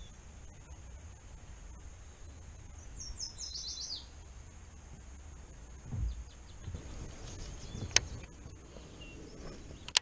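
Quiet lakeside ambience with a bird chirping in a quick short run about three seconds in, a dull bump about six seconds in, then two sharp clicks about eight and ten seconds in as a baitcasting reel is handled.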